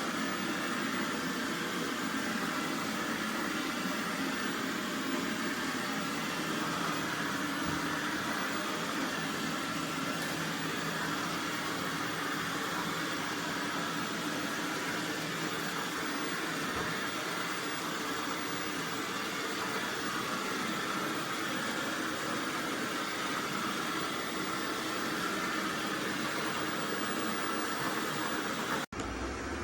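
AIRROBO T20+ robot vacuum running: a steady suction-fan and brush whir that breaks off sharply near the end.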